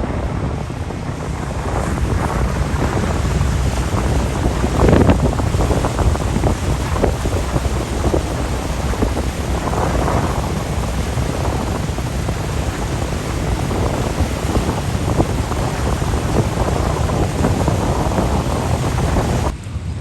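Wind buffeting the microphone aboard a moving river ferry, over the rush of water. It eases off sharply near the end.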